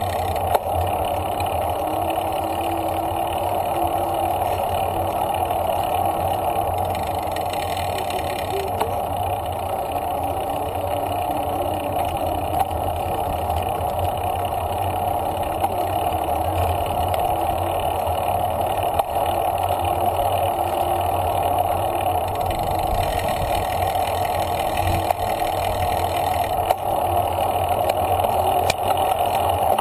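Steady wind rush and rolling tyre and drivetrain noise on the mic of a bicycle-mounted action camera riding along a paved path, with a few faint clicks.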